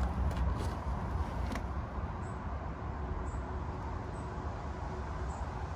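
Steady low outdoor rumble with a few faint clicks in the first two seconds.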